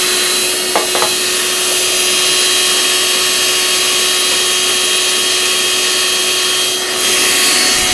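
Shop vacuum motor running steadily with a constant whine, pulling suction on a tractor's hydraulic tank through a hose. Its sound dips briefly and then grows a little louder about seven seconds in.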